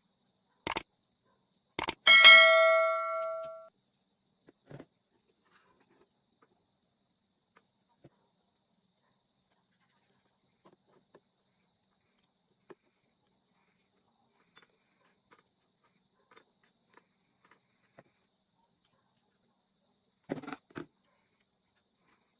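A couple of sharp clicks, then a metal object struck or set down, ringing with a bright bell-like tone that fades over about a second and a half. Faint ticks and a few light knocks near the end, over a faint steady high-pitched whine.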